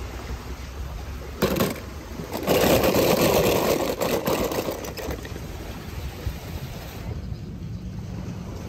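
Wind rumbling on an outdoor microphone, with handling noise: a short rustle about a second and a half in, then a louder stretch of rustling and clicking clatter from about two and a half to five seconds in.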